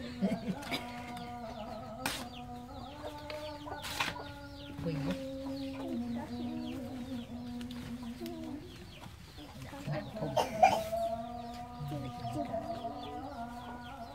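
Chickens clucking over a long, steady droning tone, with a few sharp knocks about two and four seconds in and again near ten seconds.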